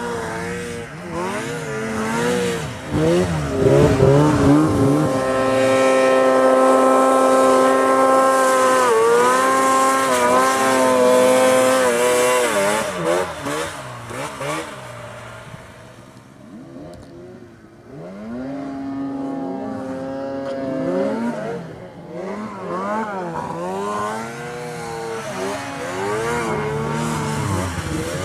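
Two-stroke mountain snowmobile engines revving up and down through deep powder. In the middle they hold a steady high rev for several seconds, drop away about two-thirds through, then rev up again.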